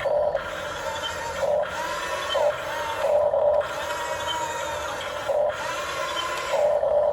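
Remote-control model excavator's electric motors whirring in short spells, the whine rising in pitch as each movement starts and falling as it stops.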